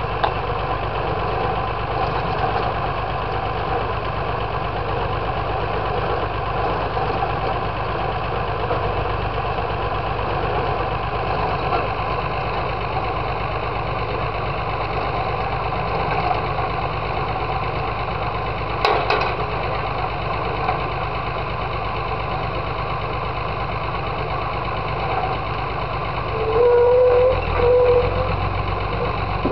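Engine of a pile-driving rig running steadily. A single sharp knock comes about two-thirds of the way through, and near the end the sound briefly grows louder with a short tone.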